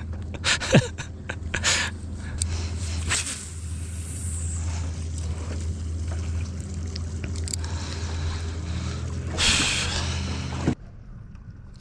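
Boat motor running with a steady low hum, cutting off abruptly near the end. A few sharp clicks come in the first two seconds, and a louder rushing noise comes just before the cutoff.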